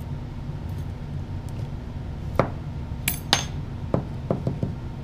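Small metal parts of a Hales grenade and tweezers clinking and tapping as they are handled. The clinks begin about halfway: a single one, then a louder ringing pair, then several lighter taps, over a steady low hum.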